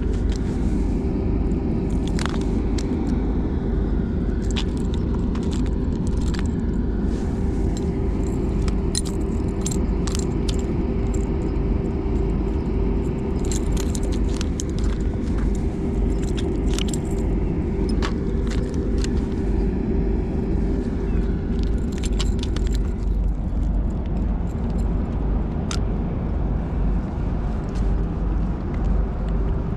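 A steady low rumble with a constant hum runs throughout. Over it come many scattered small metallic clicks and clinks from fishing pliers and a spinning reel being handled.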